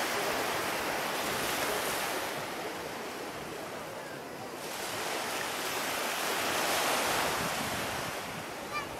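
Small sea waves breaking and washing up on a sandy shore, the surf swelling, easing off about four seconds in and swelling again, with wind buffeting the microphone.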